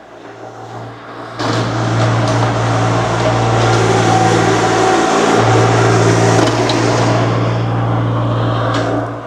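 Engine of a compact earthmoving machine (mini excavator or skid loader) working under load. The engine note rises sharply about a second and a half in, holds loud and steady with a brief dip about halfway, and drops back near the end.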